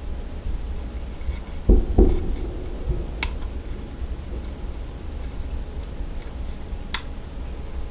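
Small clicks and taps of a Lishi pick-decoder working the wafers of a Hyundai Sonata door lock, with two dull thumps close together a little under two seconds in.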